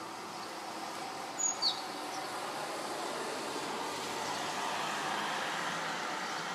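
A van driving past on the street: tyre and engine noise swells slowly, peaks a little after the middle, then fades. Two short high bird chirps come about a second and a half in.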